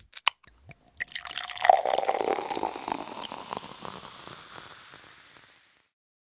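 Dripping, splashing, water-like sound: a dense run of drops and clicks starts about a second in and thins out, fading away over about five seconds.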